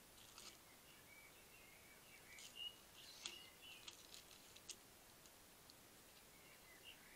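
Very faint, mostly quiet night garden: a hedgehog crunching dry kitten food from a tray gives a scatter of short clicks through the middle. A few faint high chirps come near the start and again near the end.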